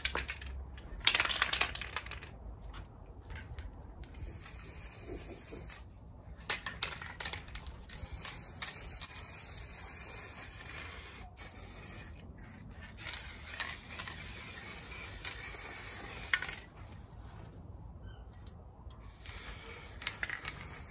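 Aerosol spray paint can hissing in repeated bursts as paint is sprayed onto a barrel charcoal grill, each burst lasting from about a second to several seconds with short breaks between.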